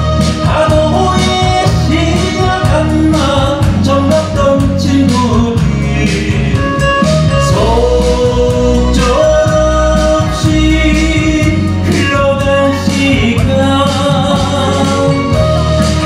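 A Korean gayo song played live by a stage band with drums and bass, and a male singer carrying the melody in long held notes.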